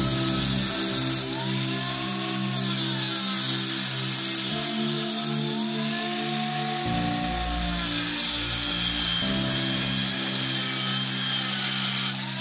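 Angle grinder with a cut-off disc cutting into steel angle iron, its whine rising and falling in pitch a few times, under background music with slowly changing chords.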